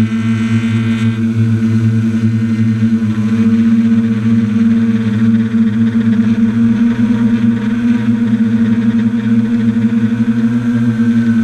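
Drone's electric motors and propellers running with a steady, even hum, picked up by the camera on board; a higher whine joins in briefly during the first second.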